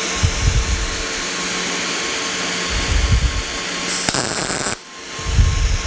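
Lincoln POWER MIG 210 MP welder arc crackling steadily while tack-welding a thin-gauge sheet-steel patch. The arc cuts out just before five seconds in and strikes again a moment later for the next tack.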